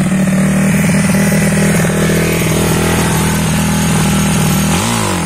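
Baltmotors Dakar supermoto motorcycle engine idling steadily, with one short blip of the throttle near the end.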